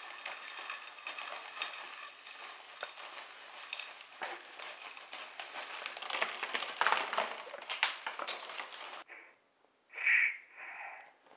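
Dry, crisp food pieces poured from a crinkling plastic bag into a frying pan: a dense rattle of many small pieces landing in the pan. It stops suddenly, and about a second later come two short electronic blips from a phone game.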